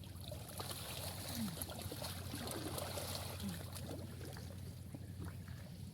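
Water trickling and lapping with scattered small splashes and knocks, as fishing gear is worked in shallow water.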